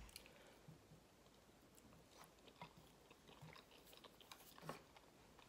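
Faint close-up chewing of soft macaroni and cheese with the mouth closed: small wet mouth clicks scattered throughout, with one slightly louder click a little past four seconds in.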